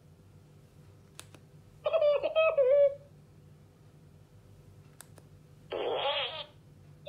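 Zuru Rainbocorn plush toy playing its electronic voice sounds. A click about a second in is followed by a short, squeaky, chirping cartoon call. A second click comes about five seconds in, and a short buzzy sound follows near the end.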